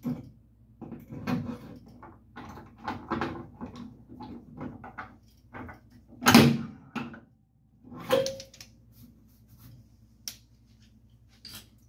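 A run of handling knocks and clatter, with a loud bang about six seconds in and a sharp knock that rings briefly just after eight seconds, over a steady low electrical hum.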